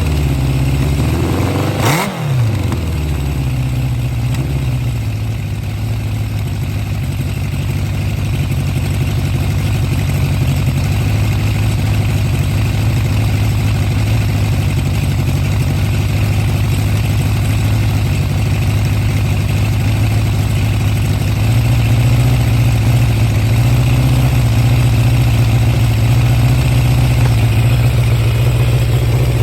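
Honda CB750 Four K3's air-cooled inline-four engine idling steadily through a baffle-modified HM341 exhaust, with a quick blip of the throttle about two seconds in and the idle note rising slightly about two-thirds of the way through. The carburettor 'sneeze' (spit-back) has nearly gone after a high float level in the #3 carb was corrected.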